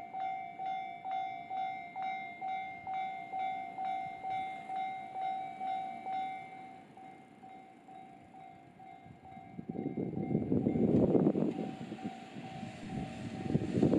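Japanese railway level-crossing alarm ringing in a steady pattern of about two dings a second, fading away about halfway through. From about nine and a half seconds in, a JR Takasaki Line train passes over the crossing with a loud rumble that surges rhythmically as the wheels run over the rails.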